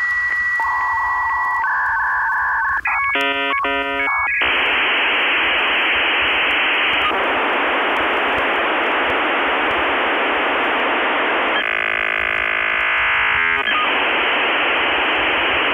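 Dial-up modem handshake over a phone line. It opens with steady beeping tones, switches to a rapid chopping warble about three seconds in, and then gives a long loud hiss that turns to a buzzing rasp for about two seconds before the hiss comes back.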